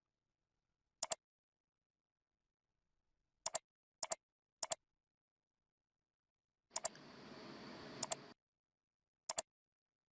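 Computer mouse button clicked seven times at uneven intervals, each a quick press-and-release double click. A short stretch of faint hiss comes in for about a second and a half near the middle of the clicks.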